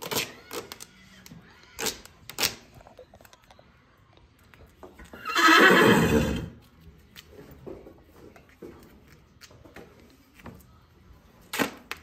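A horse neighs once, about halfway through. Around it come a few short, sharp rips of duct tape being pulled off the roll.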